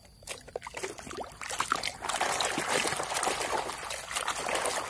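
Muddy toy car being swished and scrubbed by hand in a bucket of sudsy water: scattered drips and splashes at first, then continuous sloshing from about two seconds in.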